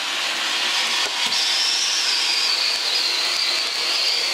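NRD cold pyro fountain burning, spraying sparks with a steady hiss. A high edge in the hiss drifts slightly lower after about a second and a half.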